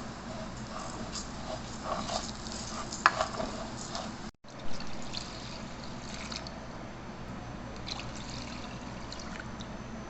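Kitchen sounds: water trickling, with scattered clicks and knocks of kitchenware over a steady low hum. The loudest knock comes about three seconds in, and the sound drops out for a moment about four seconds in.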